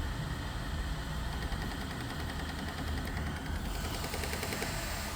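Bambu Lab P1S 3D printer ticking fast and evenly while loading filament, over the steady hum of its fans; the ticking grows clearer about two-thirds of the way through. It is the unwanted ticking during filament loading that the owner is showing.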